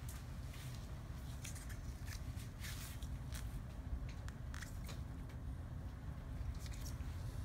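Short, scattered scratchy rustles from gloved hands working a surgical skin marker and a plastic ruler over hair and scalp, heard over a steady low hum.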